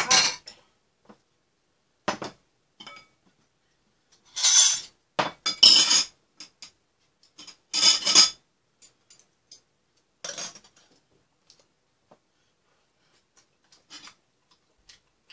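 Utensils clinking and scraping against a metal ramen pot and ceramic and glass bowls while noodles are served out, in several separate bursts of clatter with pauses between, the loudest about halfway through.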